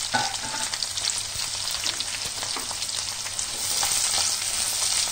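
Sliced onions, whole green chillies and curry leaves sizzling in hot oil in a kadai, with scattered crackles. The sizzle grows louder about three and a half seconds in, as the onions are stirred.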